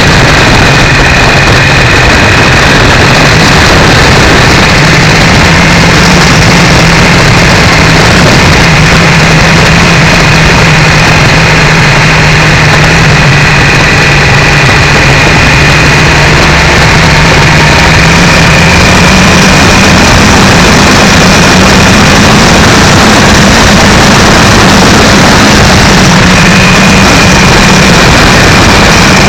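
Triumph 955i motorcycle's three-cylinder engine running at a steady speed under a heavy rush of wind noise, loud and distorted from the cheap camera mic mounted on the bike. The engine note rises slightly about two-thirds of the way through.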